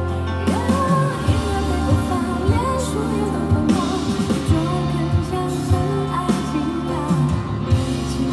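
Pop song with a woman singing over a band: sustained bass notes and a steady beat of about two thumps a second under a wavering vocal line.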